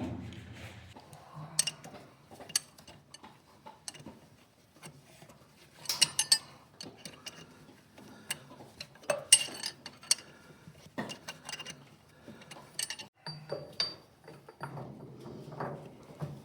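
Steel hand tools and tractor clutch parts clinking and clanking now and then, in small clusters of sharp metallic knocks, as work goes on fitting the throwout-bearing yoke and its clamp bolt.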